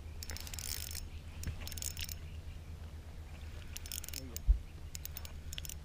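Faint clicks and rattles of fishing tackle as a hooked bass is reeled in, over a steady low hum, with one sharp knock about four and a half seconds in.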